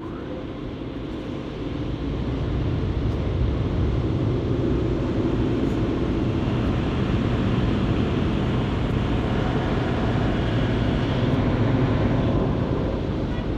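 Automatic car wash spraying water over the car's roof and moonroof glass, heard from inside the cabin: a loud, steady rush that builds over the first couple of seconds and then holds.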